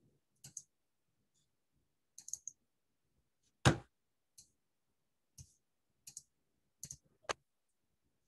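Computer mouse clicks: about ten short, separate clicks spread unevenly, some in quick pairs or threes, the loudest a little before the middle.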